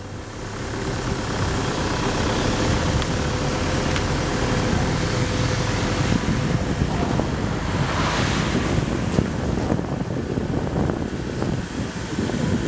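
Steady road rumble and wind noise from a vehicle driving across a bridge, with a brief swell of hiss about eight seconds in.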